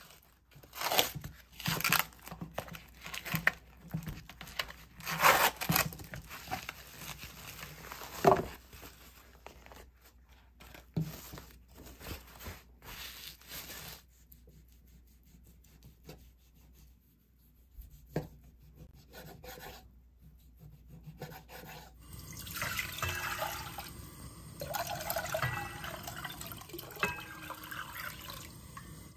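A run of sharp knocks and clatters, then a quiet stretch. Near the end, water is poured from a glass measuring jug into a pot and runs steadily for several seconds, with brief breaks between pours.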